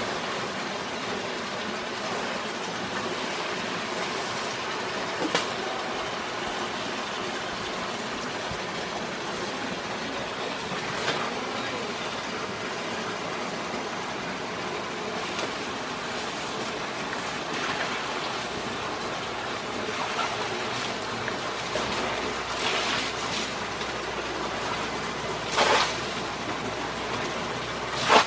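Steady rushing of a nearby river, with a few brief rustles and snaps, the loudest about 25 seconds in.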